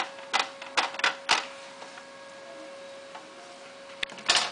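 A cloth-wrapped plastic squeegee swiped firmly across a vinyl laptop skin in four quick rubbing strokes, pressing the last soapy water out from under the skin. About four seconds in, a click and a short scrape as the squeegee and cloth are put down.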